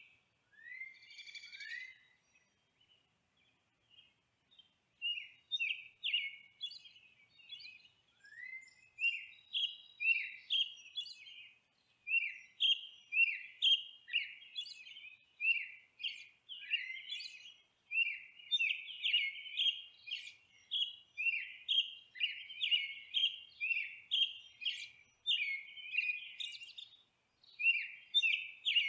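Songbirds chirping: short, quick downward-sliding chirps. They are sparse at first, with a brief lull a few seconds in, then come in rapid, busy runs of several chirps a second.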